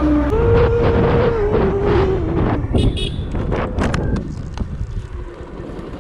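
A cargo truck passing close by, its engine drone sliding steadily lower in pitch as it goes past, with wind buffeting the microphone. About four seconds in it fades to a lower rumble of engine and road noise.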